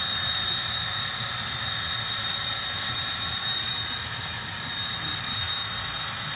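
A model diesel locomotive running under sound-decoder engine sound, with the coal hoppers it pulls rolling along the track behind it. The sound is steady, with a constant high-pitched tone over a low hum.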